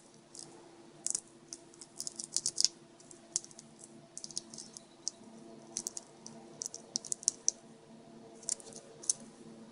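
Small, irregular clicks and ticks from tiny screws and a small screwdriver being handled against the plastic case of a GPS unit during reassembly.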